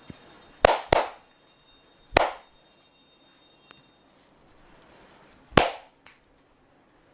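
Loud, sharp slaps of a massaging hand on the body: two in quick succession, another about a second later, and a last one some three seconds after that.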